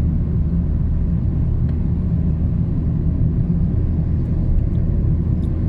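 Steady engine drone and road rumble of a moving car, heard from inside the vehicle, with a constant low hum.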